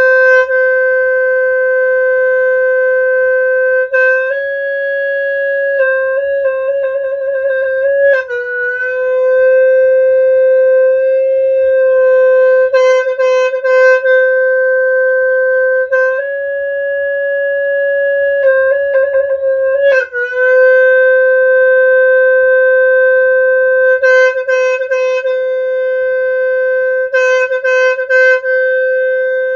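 Khmer snaeng horn, an animal-horn free-reed horn, sounding long held notes on nearly one pitch. The note steps a little higher twice and falls back, with short wavering trills and brief breaks about 8 and 20 seconds in.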